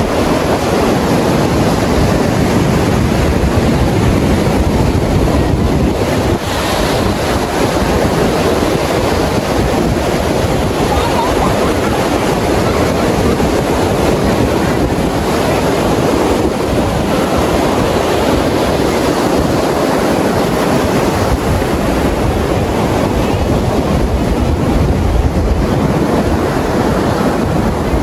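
Ocean surf breaking and washing up the sand in a steady rush, with wind buffeting the microphone.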